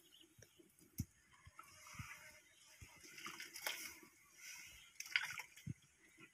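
Ladle stirring a thick broth in a metal wok: faint scraping and liquid sloshing with a few sharp knocks of the ladle against the pan.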